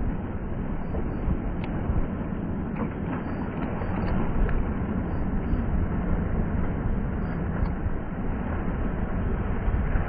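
Lake Erie waves washing over and breaking on shoreline rocks, a steady rushing wash with small surges, under a heavy low rumble of wind on the microphone.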